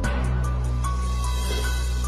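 Background music: sustained low notes under a few held higher tones.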